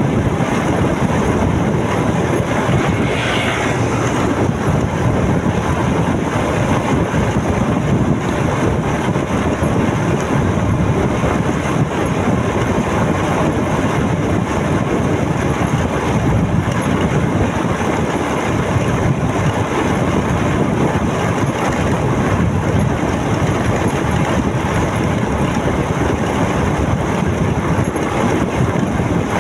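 Onboard sound of a motorcycle underway: a steady, loud rush of wind and road noise with the engine running underneath.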